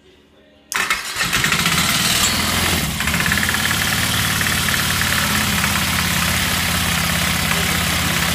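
Cectek ATV engine starting abruptly about a second in, then idling steadily with a knock in its running that the owner presumes comes from the clutch.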